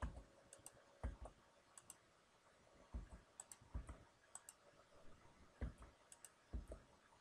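Faint, irregular clicks and taps of a computer keyboard and mouse as numbers are typed in and entered, with a few soft key thumps among lighter ticks.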